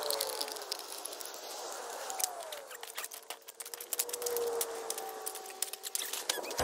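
Handling noise: a rapid, irregular series of small clicks and crackles, with a few faint gliding whistle-like tones behind them.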